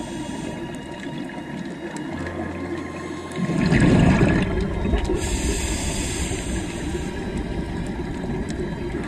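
Scuba regulator breathing heard underwater. A hissing inhale fades out about half a second in, a loud gush of exhaled bubbles comes around four seconds in, and another hissing inhale follows, all over a steady low rumble.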